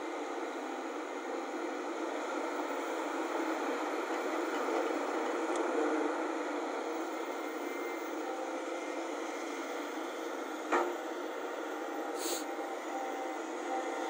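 Diesel engines of crawler excavators running steadily as a Volvo excavator digs and swings, with a sharp knock about eleven seconds in and a brief hiss a second and a half later.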